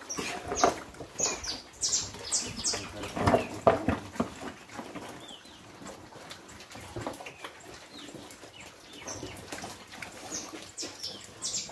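A group of fattening pigs eating mash from a trough and feed pans: irregular chewing, slurping and snuffling, with short grunting noises and a few brief high squeaks about a second in and near the end.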